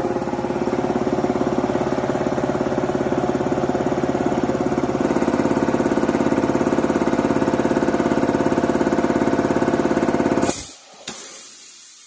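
Alkin W31 Mariner high-pressure air compressor running under load with a fast, even pulsing, the pressure climbing towards cut-off. About ten and a half seconds in it shuts off suddenly as the pressure switch trips at about 4300 psi, followed by a short sharp burst and a hiss that fades out.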